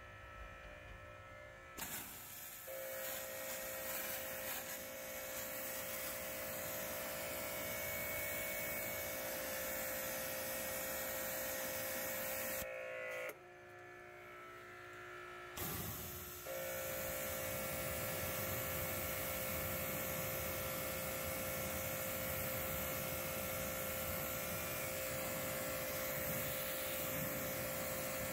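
Electric pressure washer running: a steady motor hum over the hiss of the water spray hitting the car's body panels. The spray starts about two seconds in, cuts out for about three seconds near the middle, then starts again and runs steadily.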